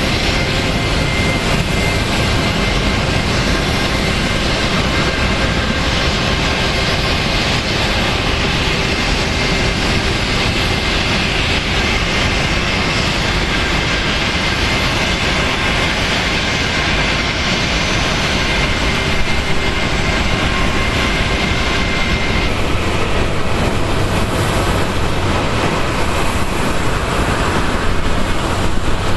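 Boeing 737-800 jet engines running, a steady loud rush with a thin high whine that drops away about 22 seconds in.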